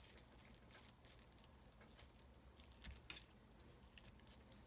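Near silence with a few faint clicks, one sharper click about three seconds in.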